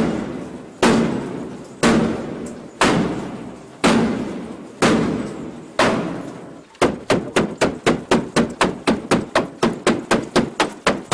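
Heavy blows on a wooden door as it is being forced, each followed by a short decaying ring. They come about once a second at first, then from about seven seconds in as a faster run of about three a second.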